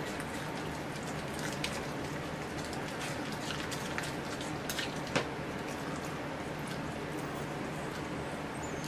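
A dog licking and chewing food scraps from a glass plate: scattered small clicks and smacks, one louder click about five seconds in, over a steady low hum.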